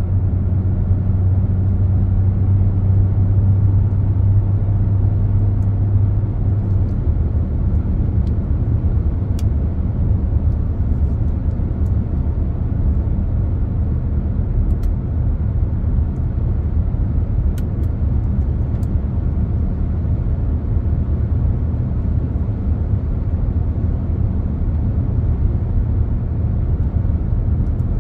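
Car driving on a highway: a steady low rumble of road and engine noise, with a low droning hum over it that stops about seven seconds in.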